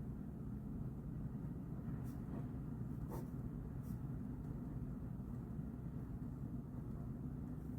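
Pen writing on paper over a steady low room hum, with a few faint clicks or taps.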